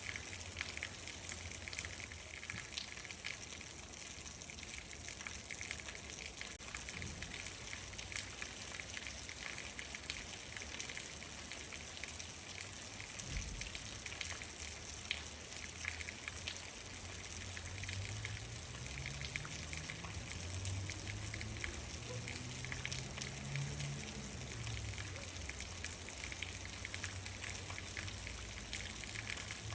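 Steady rain falling, a dense hiss with individual drops ticking. In the second half a low rumble rises and fades away over several seconds.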